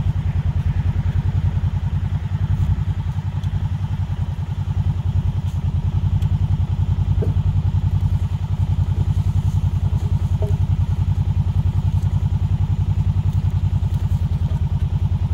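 Quad (four-wheeler) engine running steadily with an even, low throb and no revving.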